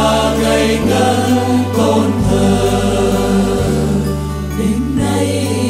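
Choir singing a Vietnamese Christmas song with instrumental accompaniment: sustained notes over a bass line that changes chord about every second and a half.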